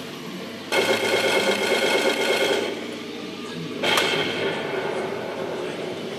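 RC tank sound unit on a 1/16 KV-2 model: under a second in, a loud rattling buzz lasts about two seconds. About four seconds in, a sharp cannon-fire sound effect sounds, timed with the muzzle flash LED, and fades away.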